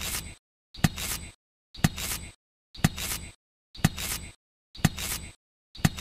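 Cherry tomatoes being set into a small toy trailer: a sharp knock followed by a brief rustle, repeated about once a second with dead silence between each one.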